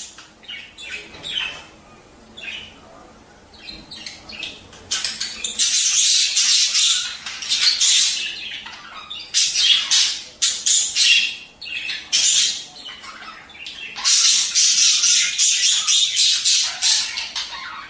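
Budgerigars chattering, warbling and chirping: the breeding-season chatter played to stimulate budgies to breed. A few scattered chirps at first, then from about five seconds in, long stretches of busy, overlapping chatter with short breaks.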